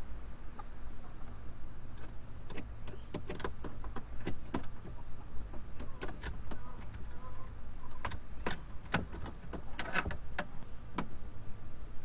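Irregular small clicks and knocks of a bolt being hand-tightened into a threaded insert in a plastic kayak's outfitting, over a low steady hum.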